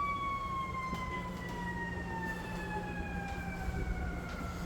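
A siren wailing, its pitch falling slowly and turning to rise again at the very end.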